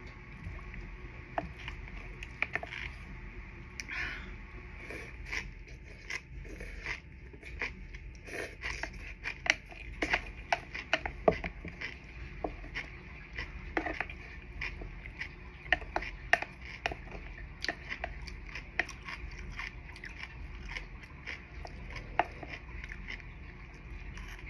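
Close-up mukbang eating sounds: chewing with a run of short wet clicks and smacks, busier from about eight seconds in, over a steady low background noise.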